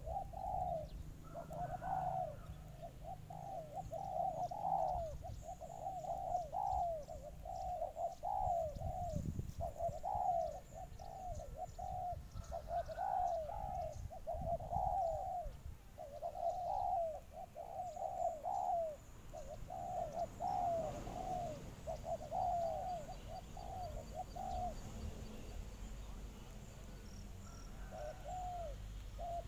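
Spotted dove giving a long, almost unbroken run of short, rapid coos, its bowing courtship call. The run pauses briefly twice, late on.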